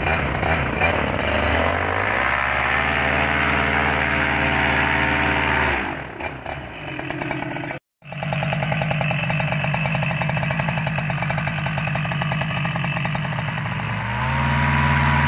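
EOS150 backpack paramotor engine and propeller running, rising in pitch about two seconds in and dropping back near six seconds. After a brief dropout near eight seconds it runs steadily, then revs up again near the end.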